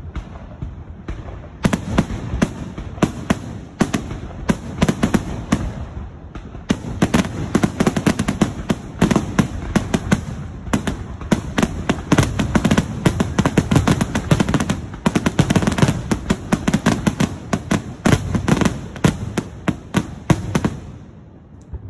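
Aerial firework shells launching and bursting in a rapid barrage: many sharp reports a second, overlapping one another, until the barrage stops suddenly near the end.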